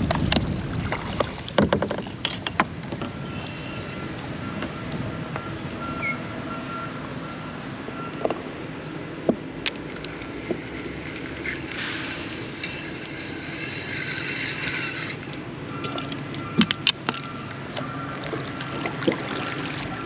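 Water moving along a plastic kayak hull, with scattered sharp clicks and knocks as a paddle and a fishing rod with spinning reel are handled aboard.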